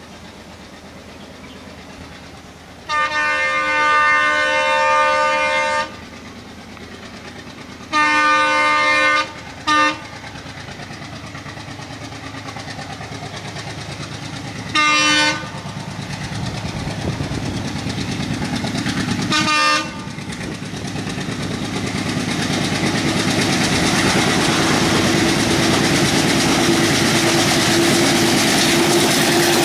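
Diesel locomotive's multi-tone air horn sounding one long blast, a shorter one, then three short toots as the train approaches. The rumble of the engine and wheels on the rails then grows steadily louder as the locomotive and coaches pass close by.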